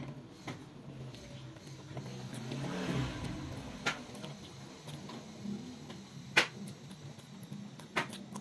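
Hand-eating sounds: fingers mixing and scooping rice on a glass plate, with chewing and a few sharp clicks and taps, the loudest about six and a half seconds in. Underneath is a low rumble that swells and fades about three seconds in.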